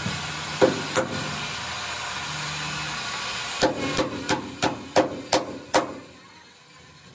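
Hammer blows: two single strikes, then a run of about seven evenly spaced strikes at roughly three a second, over a steady background hum that dies away near the end.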